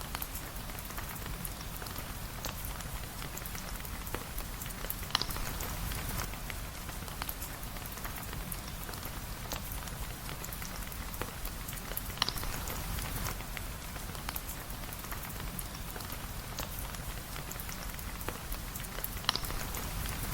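Steady rain falling, an even patter scattered with faint ticks. Three sharper pops stand out, about seven seconds apart.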